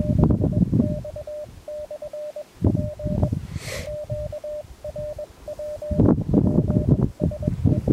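Morse code (CW) from a portable amateur radio transceiver: a single mid-pitched tone keyed in dots and dashes, over irregular bursts of low rumbling noise.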